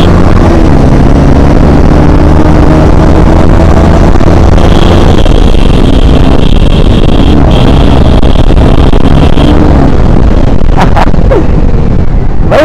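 KTM Duke 250's single-cylinder engine running at speed under loud wind roar on the rider's microphone, its note rising steadily through the first few seconds as the bike accelerates.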